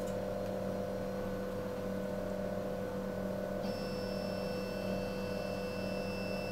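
K40 laser cutter humming steadily as its stepper motors drive the laser head during a homing run; about halfway through, a higher whine joins in. The head is travelling away from the upper-left home corner, the sign of a reversed Y-axis connector.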